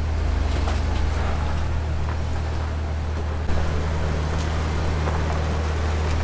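Jeep Wrangler engine running at a slow off-road crawl, a steady low drone with faint scattered ticks. The sound shifts abruptly about halfway through.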